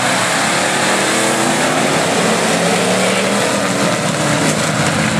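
A pack of stock cars running together on a dirt track, several engines at once, their overlapping engine tones shifting a little in pitch as they drive.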